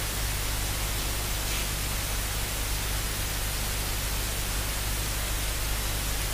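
Steady hiss with a low, constant hum underneath: background recording noise, with no distinct sound standing out.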